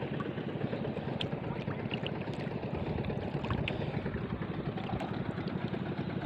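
Water sloshing and splashing against a small wooden outrigger boat and its bamboo outrigger, a steady wash of water noise with small scattered clicks.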